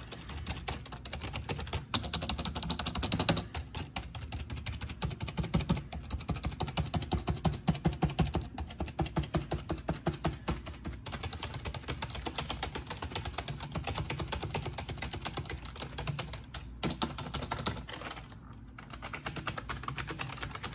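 Razer Cynosa Chroma membrane gaming keyboard typed on rapidly: a dense, continuous clatter of key presses, easing briefly near the end.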